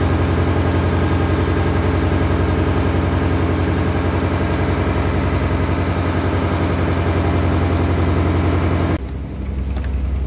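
Engine of a floating lift-net fishing boat running steadily. About nine seconds in it drops suddenly to a quieter, lower engine sound.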